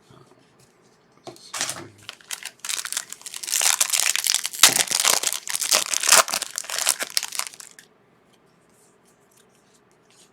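Foil wrapper of a trading card pack crinkling as it is torn open and handled, a dense crackle lasting about six seconds.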